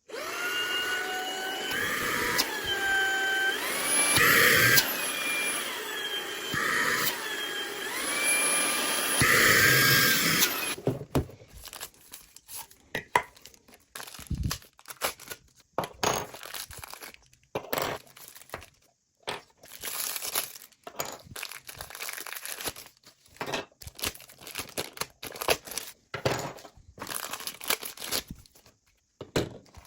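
Handheld cordless vacuum running with a motor whine over the rush of air, stepping up and down in pitch several times as it changes speed, then shutting off about ten seconds in. After that come scattered clicks and the rustling and crinkling of plastic packaging.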